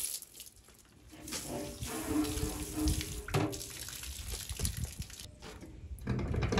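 Water running from a faucet into a stainless-steel sink, starting about a second in and stopping around five seconds, followed by low knocks and handling sounds.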